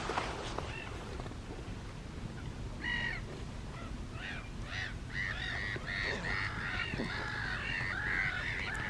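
Black-headed gulls calling: harsh, rasping cries, the first about three seconds in, then coming thick and overlapping through the second half.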